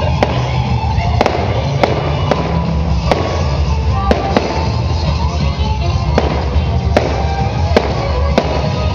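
Fireworks bursting overhead: about a dozen sharp bangs at irregular intervals, over continuous background music.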